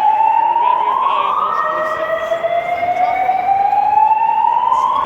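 EST voice-evacuation fire alarm speakers sounding the slow whoop evacuation tone between spoken messages: a loud tone that climbs steadily in pitch for about three seconds, breaks off about a second and a half in, then starts low again and climbs to near the end.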